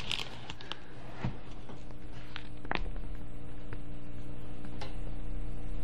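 A steady, even hum at several fixed pitches, with a few short clicks and a low rumble that grows louder: handling noise as the camera and a paper receipt in a plastic sleeve are moved.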